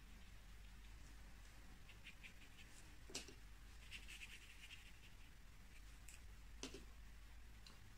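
Near silence with the faint, soft scratching of a small watercolour brush working on paper, and two light clicks, about three seconds in and again near seven seconds.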